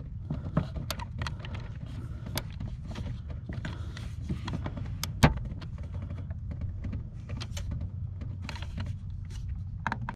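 Cordless electric ratchet whirring on a door hinge bolt, with scattered sharp clicks of socket and metal and one louder click about halfway. The hinge bolts are too tight for the ratchet to break loose.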